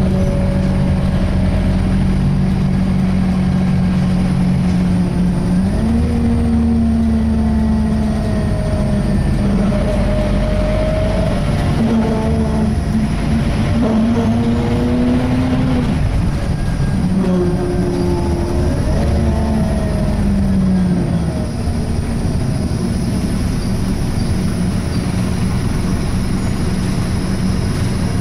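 Scania K230 single-deck bus heard on board, running with a loud groaning noise. The groan holds a steady pitch at first, rises and falls repeatedly from about six seconds in, and settles back to a steady drone after about twenty seconds.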